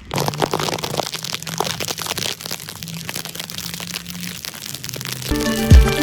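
Crackling, buffeting noise on the camera's microphone during a rainy motorcycle ride, with a faint low hum under it. Background music with a deep, booming beat comes in near the end.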